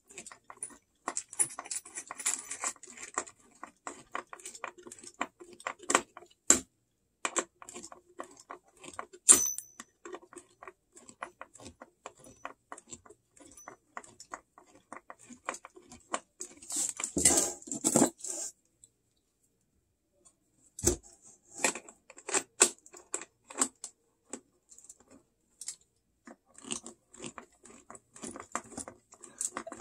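Small screwdriver clicking and scraping against a bolt and metal bracket in many quick, light metallic clicks. A louder rustling stretch comes about 17 seconds in, and a single thump near 21 seconds.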